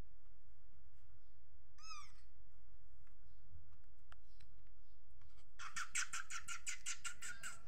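A kitten mewing once, a short high call about two seconds in. Near the end, a rapid rattling run of clicks, about seven a second, lasts about two seconds.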